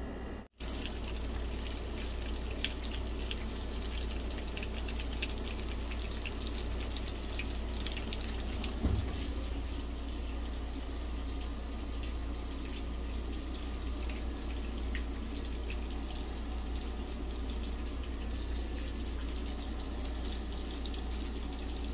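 Vegetables sizzling and crackling on a tray roasting in a hot oven: a steady hiss full of fine pops over a low hum, with a single thump about nine seconds in.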